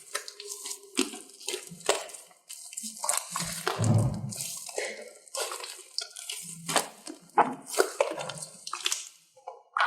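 Slime being squeezed and pressed by hand: irregular wet squelches and sticky pops, several a second.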